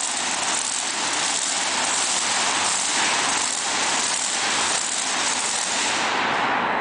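Loud, steady machine noise, hiss-heavy and engine-like, with a faint pulse about twice a second; it thins out near the end.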